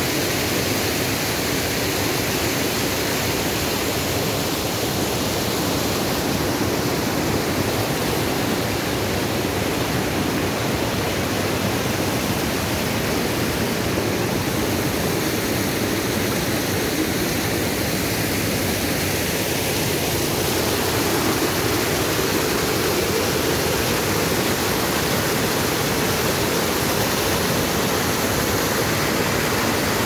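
Water of a rocky stream rushing and splashing over rocks and small cascades: a steady rush, a little louder about two-thirds of the way through.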